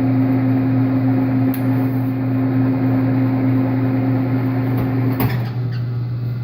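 Metal lathe running while a boring bar cuts inside bushing stock: a steady machine hum with cutting noise. About five seconds in there is a sharp click, after which the cutting noise and a steady higher tone drop away and the lathe's hum runs on.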